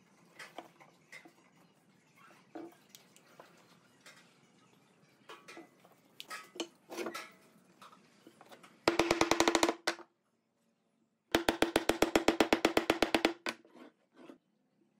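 Scattered light knocks of work in a wood shop, then two bursts of rapid, evenly spaced rattling strikes over a steady hum, the first under a second long and the second about two seconds long.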